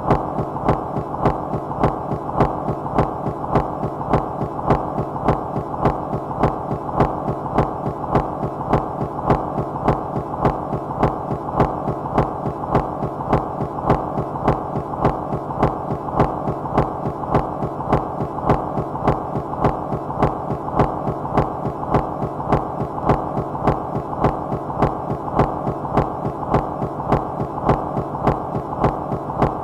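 Minimal micro-industrial rhythmic noise music: a steady, evenly repeating throb of filtered noise over a low hum, with no melody or voice.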